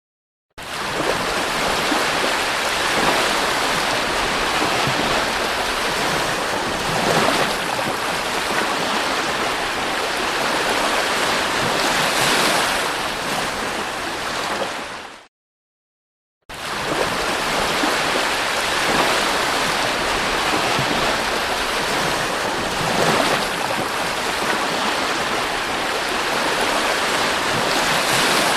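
Sea surf breaking and washing up the shore: a steady rushing hiss that swells and eases every few seconds. It drops out completely for about a second midway, then carries on.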